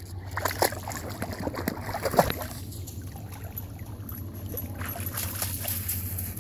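Scattered crunches of footsteps on wet shoreline gravel over a steady low rumble.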